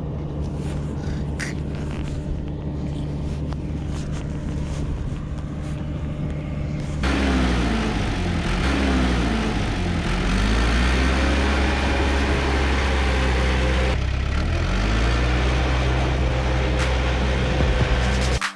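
Bulldozer's diesel engine running steadily, then about seven seconds in growing louder, its pitch rising and falling as the revs change. It stops suddenly near the end.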